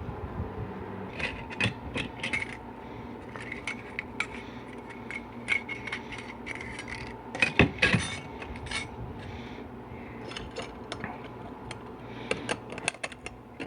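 Steel parts of a 4L80E transmission clutch pack clicking and clinking against each other as the pressure plate is fitted by hand, with a cluster of louder metal knocks a little past halfway.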